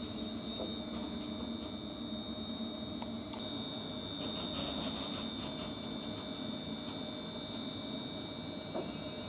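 ScotRail Class 380 electric multiple unit pulling up and standing at the platform, its electrical equipment giving a steady high-pitched whine over a low rumble.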